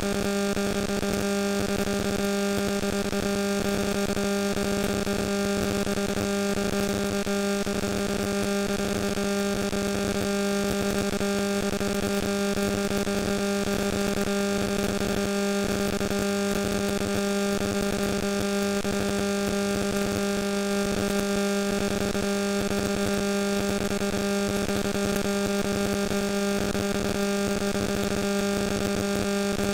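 Steady electrical hum with a buzzy edge: one low pitch with a ladder of overtones, unchanging in pitch and level, over a faint hiss.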